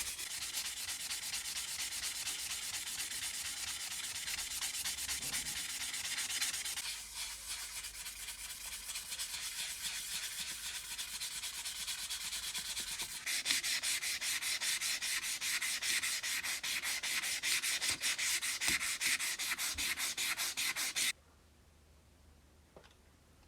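Hand sanding of an old hammer: rhythmic back-and-forth rubbing strokes that grow louder and harsher about halfway through, then stop suddenly near the end.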